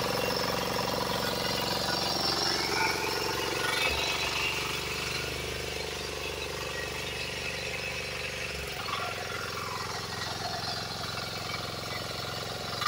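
Diesel engine of an 8.8 hp power weeder running steadily under load as its rotary tines till the soil.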